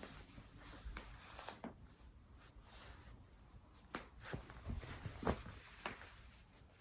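A person's own joints cracking during self-manipulation: a handful of small sharp pops spread through, the loudest a little past five seconds in, with faint shuffling movement between them.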